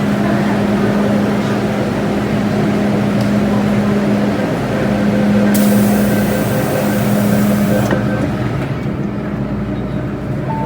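Metro-Cammell M-Train electric multiple unit running between stations, heard from inside the car: a steady rumble of wheels and running gear with a constant low hum. A hiss rises over it for a couple of seconds about halfway through.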